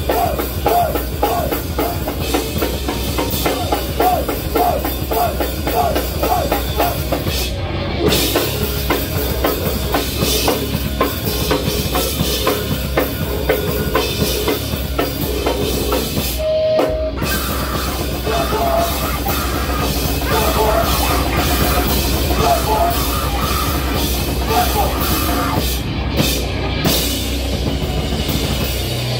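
A live rock band playing loud: bass guitar, drum kit and a singer at the microphone, with a short break in the playing about halfway through.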